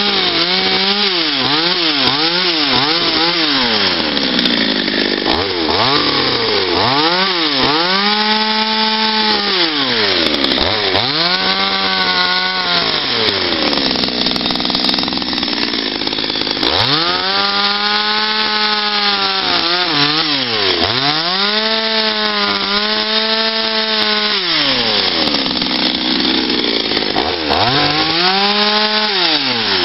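Patriot petrol chainsaw carving wood, its two-stroke engine revving up and down over and over. There are several quick throttle blips in the first few seconds, then longer stretches held at high revs that drop back between them.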